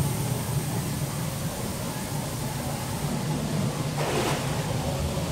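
Steady low drone and water noise of a small ride boat moving along a water channel, with a short rush of noise about four seconds in.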